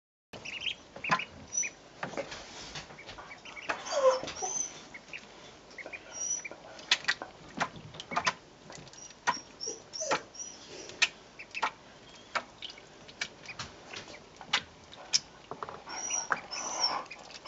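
Newly hatched Call ducklings in a shallow plastic tray of water: frequent short splashes and taps as they paddle and dabble, with brief high peeps now and then.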